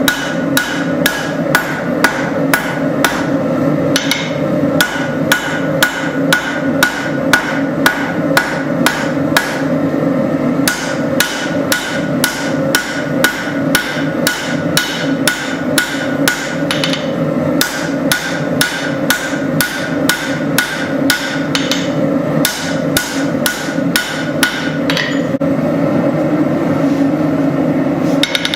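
Blacksmith's hammer striking hot flat spring steel on an anvil while forging out a Tanto knife blade: sharp ringing blows about two a second, in runs with brief pauses. A steady roar runs underneath.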